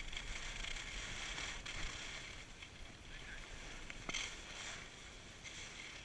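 Continuous hiss and scrape of edges sliding over packed snow on a groomed piste during a downhill run, with a single click just before four seconds and louder scraping surges about four seconds in and again near the end.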